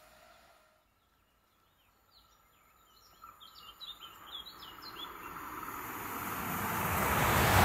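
Birds chirping for a couple of seconds, then the rising rush of an approaching ED250 Pendolino electric high-speed train, growing steadily louder toward the end.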